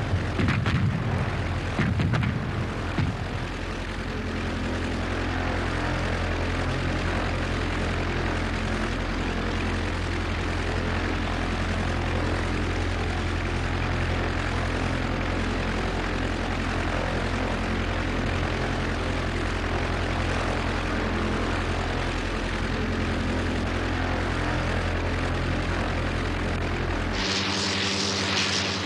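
Early biplane's propeller engine droning steadily in flight, with a few sharp cracks in the first three seconds. Near the end the sound changes abruptly to a harsher, hissing engine noise.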